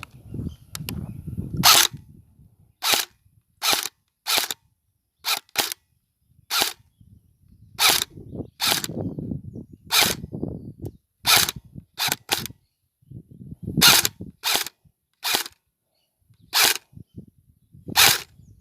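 Airsoft gun firing single shots, about nineteen sharp cracks at irregular intervals of roughly half a second to a second and a half, with faint low rustling between shots.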